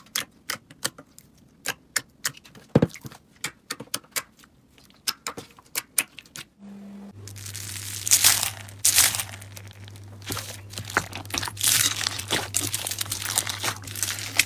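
Slime being squeezed and pressed by hand: first a series of sharp clicking pops, a few a second, then, after a cut, a dense crackling crunch over a steady low hum.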